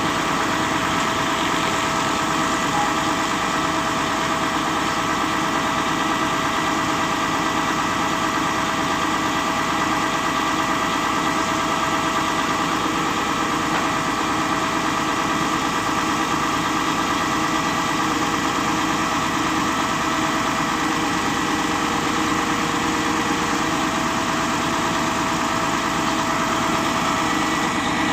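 XCMG concrete pump truck's diesel engine running steadily at a constant speed, with steady whining tones over it.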